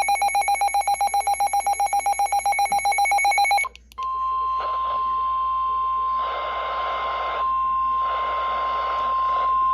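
Electronic weather-alert tones: rapid pulsing alarm beeps for about three and a half seconds, then after a short break a single steady alarm tone of the kind a weather radio sounds before a warning message, with patches of static hiss behind it.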